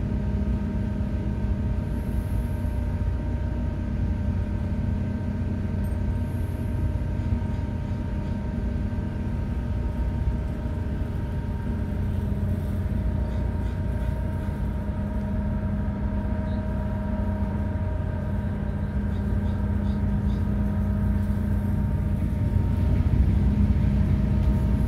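Car ferry's engines running steadily: a low rumble with several steady hum tones over it, getting a little louder near the end.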